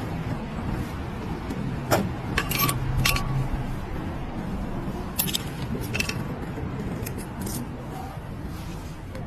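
Metal hand tools clicking and scraping in a handful of short, sharp strokes, the kind made while working a puncture repair on a tyre, over a steady low hum.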